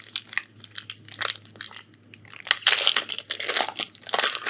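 Foil booster pack wrapper crinkling and crackling as it is torn open and handled, in irregular bursts that grow louder about halfway through.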